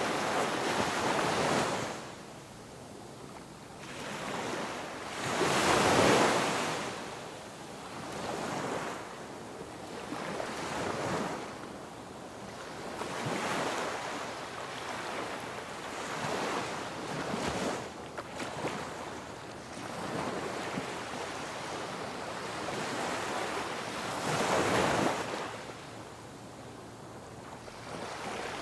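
Ocean waves breaking and washing ashore, a rushing surge that swells and ebbs every few seconds, with the biggest waves about six seconds in and again near the end.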